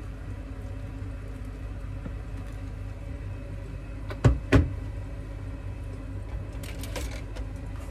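Two sharp knocks about a third of a second apart, from kitchenware being handled at a sink, over a steady low hum; a few faint clicks follow near the end.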